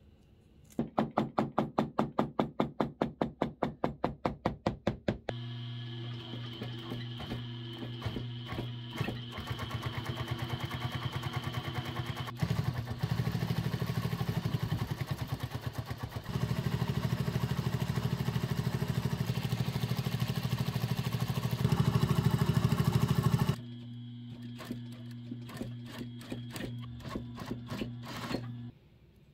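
A quick run of even knocks, about five a second, for some four seconds. Then an industrial sewing machine runs, stitching a leather bag handle strap: a steady motor hum with a fast stitching rhythm that speeds up twice, eases off and stops near the end.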